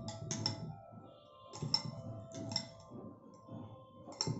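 Metal spoon clinking against a glass bowl as fresh cream is beaten by hand: irregular sharp clicks, a couple in quick succession, with soft stirring between them.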